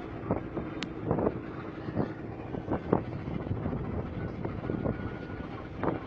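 Steady drone of a ship's engines heard from the open deck, with wind gusting on the microphone in short irregular bursts.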